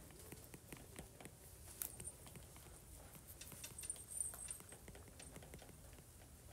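Faint, irregular taps and light scratches of handwriting on an iPad touchscreen.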